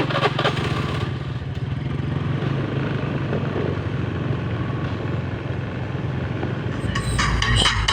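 A small engine runs steadily with a low, even pulsing hum. About seven seconds in, a sound system's subwoofers cut in with loud, bass-heavy electronic music.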